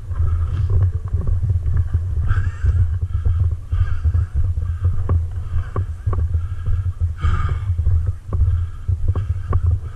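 Steady low rumble of movement and handling noise from a carried camera, with irregular knocks and clicks from a player on the move, and a few brief faint voices in the background.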